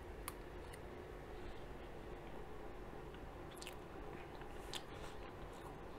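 Faint chewing of soft chocolate cake, with a few small clicks as a fork digs into the cake.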